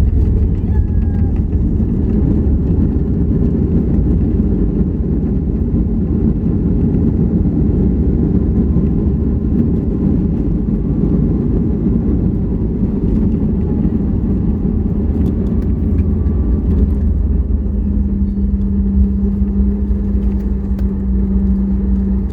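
Cabin noise inside a Boeing 737 MAX 8 during landing: a loud, steady low rumble of its CFM LEAP-1B engines and rushing air. A steady hum joins in about 18 seconds in.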